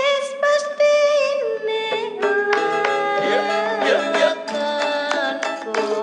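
Multi-tone musical bus horn (Indonesian 'telolet' klakson) playing a quick melody. Its pitched notes step up and down several times a second, with sharp clicks as the notes switch.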